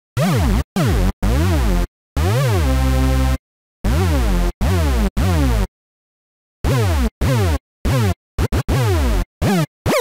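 Hoover rave synth patch on the Serum software synthesizer, built from a triangle sub, two pairs of detuned buzzy oscillators an octave apart and a little white noise. It is played as a series of separate notes, each sweeping up and down in pitch as an LFO modulates the master tuning, with short gaps between notes and two longer pauses.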